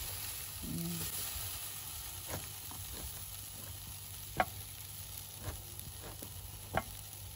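Chili-marinated pork loin chop sizzling on the wire grate of a charcoal grill: a steady hiss with a few sharp pops.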